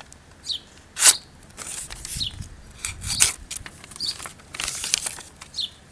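A knife's steel blade making a series of short, sharp scraping strokes, about eight spread over several seconds. A low rumble of wind on the microphone comes in around the middle.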